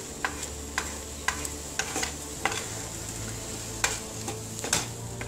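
Scrambled eggs sizzling in a non-stick saucepan while a wooden spatula stirs them, scraping and knocking lightly against the pan every half second or so.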